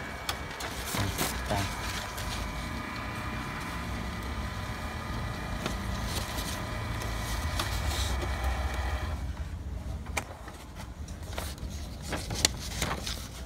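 HP Color LaserJet Pro MFP M177fw laser printer running after printing a supplies report: a steady motor hum with several fixed whining tones that stops abruptly about nine seconds in. A few sharp clicks follow near the end.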